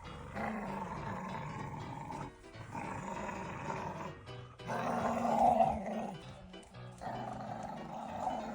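A dog growling in play in rough bursts of a second or two, loudest about five seconds in, over background music.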